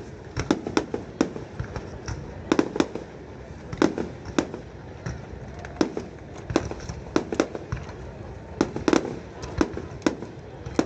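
Aerial fireworks bursting in a rapid, irregular string of sharp bangs, often several a second, with a few louder booms among them.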